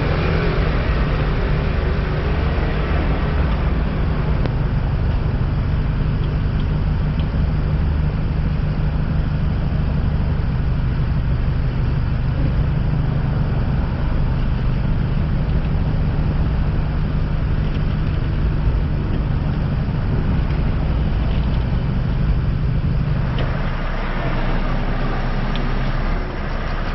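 A large truck engine running steadily at raised speed. About twenty-three seconds in, its note drops lower and it gets slightly quieter.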